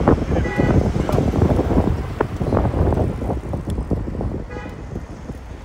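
Wind buffeting and rushing over the microphone from a moving car, with the car's road noise underneath. Two brief calls, about half a second and four and a half seconds in.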